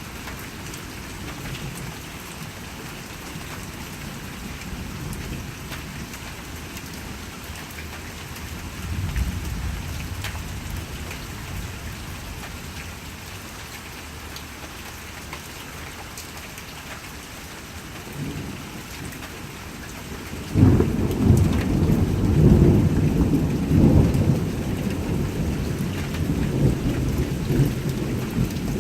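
Steady rain falling with thunder: a low rumble swells about nine seconds in, then a sudden loud clap about twenty seconds in rolls on as heavy rumbling.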